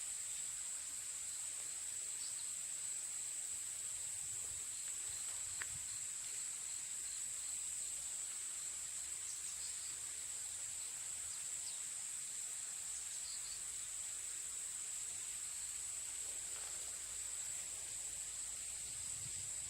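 Steady, high-pitched drone of an insect chorus, with faint short chirps now and then and a single click about five and a half seconds in.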